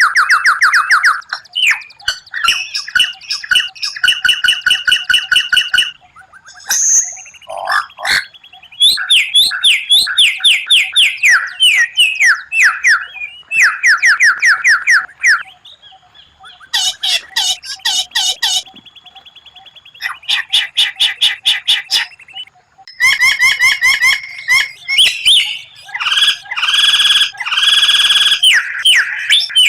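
White-rumped shama (murai batu) song: rapid-fire bursts of fast repeated notes and trills, each phrase lasting a couple of seconds and broken by short pauses.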